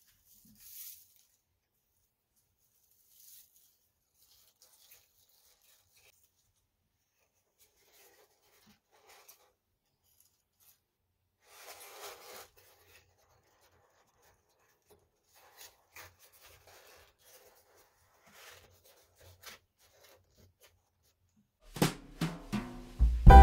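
Faint rustling of crinkle-cut paper shred being packed into a small cardboard box, then soft cardboard rustles and taps as the box flaps are folded shut. Near the end a few sharp percussive hits sound and music begins.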